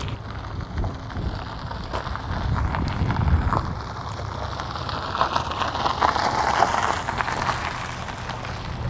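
Wind buffeting the microphone, footsteps scuffing on asphalt, and a car rolling slowly nearby, its noise swelling about two-thirds of the way through.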